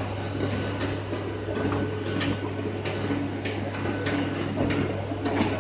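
Wheels of a moving electric local train clicking over rail joints and points at uneven intervals, several a second, heard from inside the coach over a steady low hum.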